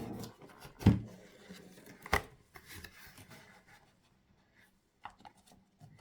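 Handling noise: two sharp knocks, about a second in and just after two seconds, with lighter clicks and rubbing between.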